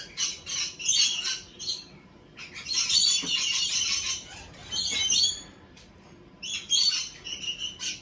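Aviary birds chirping and squawking in busy bursts, with short lulls about two and six seconds in.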